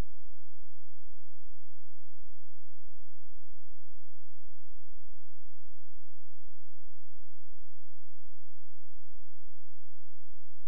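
A steady, unchanging low electronic hum, with a fainter high whine above it.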